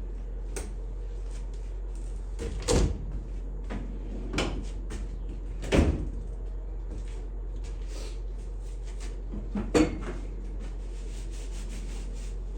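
Workshop handling sounds: light clicks and four louder knocks of parts and tools being picked up and set down, over a steady low hum.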